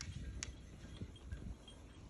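A flock of sheep and goats shuffling about between bleats, with a low rumble throughout and one sharp clink about half a second in.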